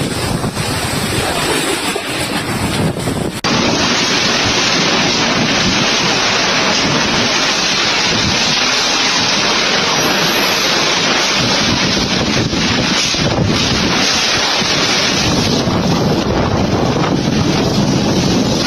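Strong wind blowing hard and buffeting the microphone as a continuous rushing noise, with an abrupt jump in loudness about three seconds in.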